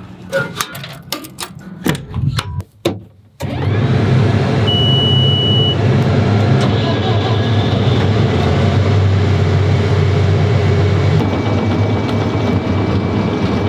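Clicks and clunks of a crawler dozer's cab door and keys, then the dozer's diesel engine comes in abruptly about three and a half seconds in and runs steadily, heard from inside the cab. A high electronic beep sounds for about a second just after the engine comes on.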